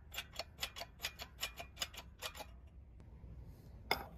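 Hydraulic shop press pressing a 3D-printed resin mold into its aluminum cavity: a quick run of even clicks, about five a second, that dies away after two and a half seconds, then one sharper click near the end.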